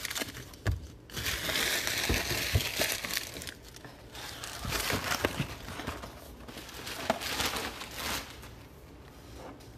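Foil trading-card pack wrappers crinkling and being crumpled in several bouts, the longest in the first few seconds, dying down near the end.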